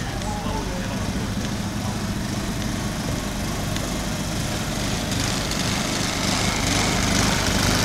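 A small engine running with a steady hum, getting louder from about five seconds in.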